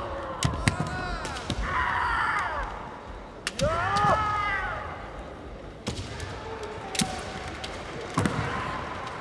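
Sharp cracks and thuds of bamboo shinai strikes and stamping feet on a wooden gym floor, echoing in a large hall. Two drawn-out kiai shouts rise and fall in pitch, about two and four seconds in.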